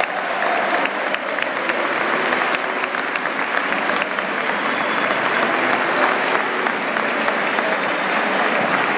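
Football stadium crowd applauding steadily, many hands clapping at once.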